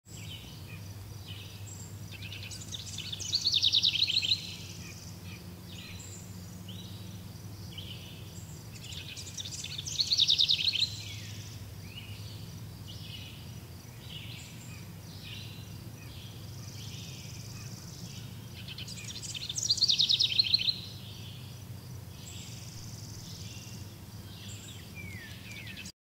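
Outdoor insect and bird sounds: a loud, fast, high buzzing swells and cuts off sharply three times, over scattered short high chirps and a steady low hum.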